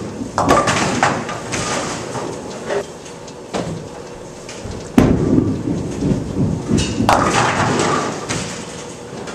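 Bowling alley lane sounds: bowling balls rolling with a low rumble and pins crashing with sudden clatters, one near the start and one about seven seconds in. About five seconds in there is a sharp heavy hit followed by rumbling.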